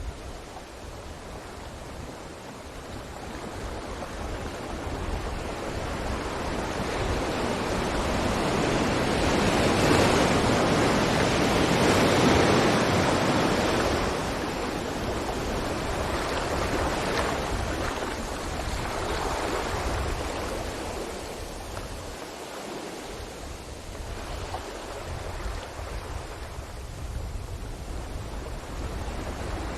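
Sea waves breaking on a beach: a steady rushing wash that swells slowly to a loud peak about halfway through and then eases back.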